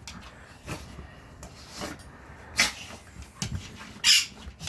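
An American bulldog and a small hairless dog play-fighting: scuffling with short breathy huffs and clicks, the loudest two about two and a half and four seconds in.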